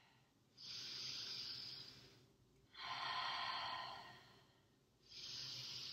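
A woman breathing audibly and slowly while holding a yoga balance pose: three long breaths, each about a second and a half, with short pauses between them.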